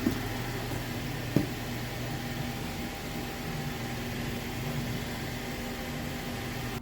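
Steady low hum of an idling car engine, with two short clicks, one at the start and one about a second and a half in.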